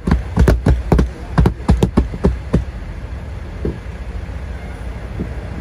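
A palm slapping and pressing on a newly installed windshield, heard from inside the cab: about a dozen quick thumps on the glass in the first two and a half seconds, then two single thumps later.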